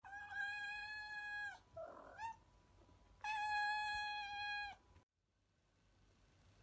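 Cat meows: two long drawn-out calls held at one pitch, each about a second and a half, with a short chirp between them. A moment of silence follows near the end.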